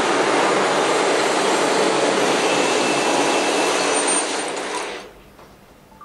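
A dense, steady rushing noise of recorded atmospheric sound played through the many loudspeakers of a sound installation. It fades about four seconds in and drops away about five seconds in, leaving a few faint clicks.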